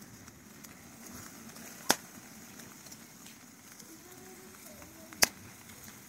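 Open wood fire burning under a grill rack, crackling faintly, with two sharp pops about two seconds and five seconds in.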